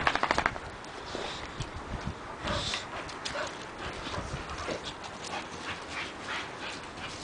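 American bulldog panting hard up close, a quick run of breaths at the start, then dogs running and scuffling with a few short whimpers.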